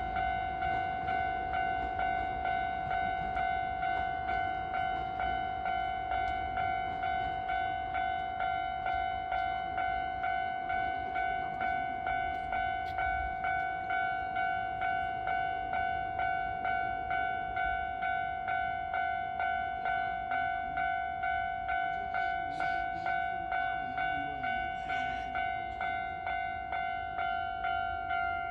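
Electronic railway level-crossing warning bell ringing steadily, about one and a half strikes a second, each ring fading before the next.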